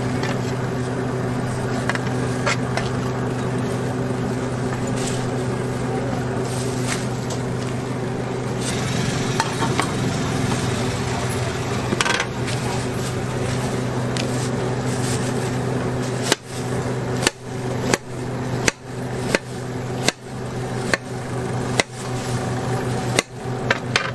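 A knife chopping fruit on a cutting board over a steady low hum: scattered cuts at first, then from about two-thirds of the way in, regular chops at about three every two seconds.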